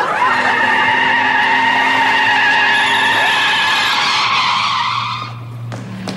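A car's tyres squealing in a long skid as it brakes hard, lasting about five seconds. After that its engine is heard idling with a low steady hum.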